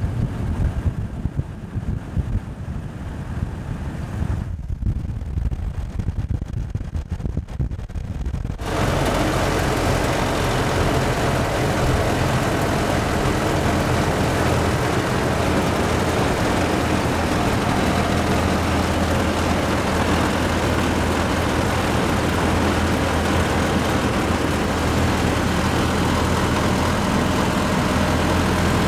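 Ford Model T's four-cylinder engine running as the car drives along, running smoothly. About eight and a half seconds in the sound changes abruptly to a louder, steady engine sound with a hiss over it.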